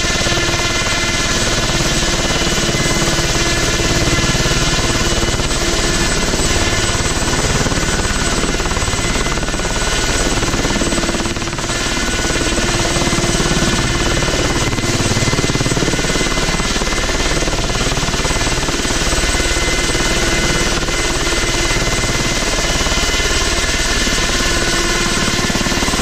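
Ultrasport 496 light helicopter running on the ground with its main rotor turning: a loud, steady engine and rotor noise with a constant whine of several steady tones.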